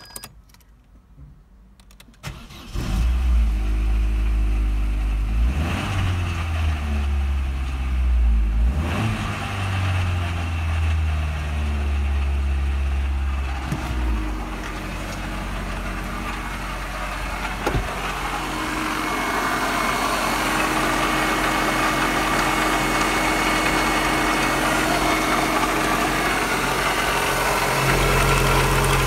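Opel Vectra B's X16XEL 1.6-litre 16-valve four-cylinder petrol engine starting about two and a half seconds in. Its speed rises and falls briefly, then it settles to a steady idle. Heard first from inside the car's cabin, then at the open engine bay, where more of the engine's high-pitched mechanical noise comes through.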